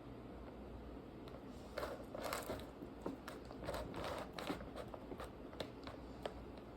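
Faint handling noises as gingerbread house pieces are worked with icing: scattered light clicks and taps with short rustles, busiest from about two to five seconds in.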